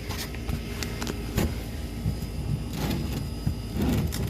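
Oil filter housing on a Toyota A25A engine being unscrewed by hand: a scatter of short scrapes and light knocks over a steady low hum.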